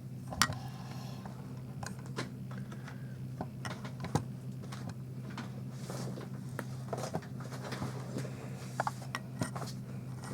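Scattered light clicks and knocks of a camera's power cable and charger being handled and plugged in, over a steady low hum.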